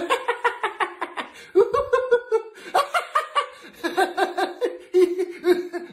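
A man laughing hard: a long run of quick, rhythmic 'ha-ha' sounds with a couple of short pauses for breath.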